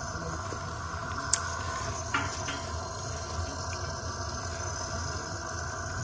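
Steady hum and hiss, with a sharp click about a second in and a smaller one about two seconds in, as an air vent is screwed onto a cast-iron steam radiator.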